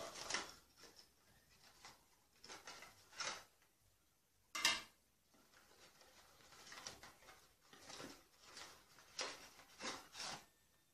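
Faint, irregular rustling and scraping of a cardboard box and its contents being handled as a phone tripod is slid out of the packaging, with one sharper click about four and a half seconds in.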